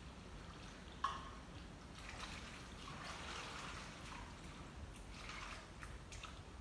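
Dishes being washed by hand in a plastic basin at a sink: water splashing and trickling, with a few small clinks and one sharp knock about a second in.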